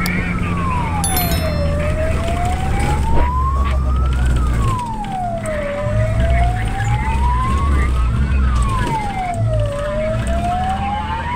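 Fire truck's wail siren, rising slowly and falling faster about every four seconds, heard from inside the cab over the engine's steady drone.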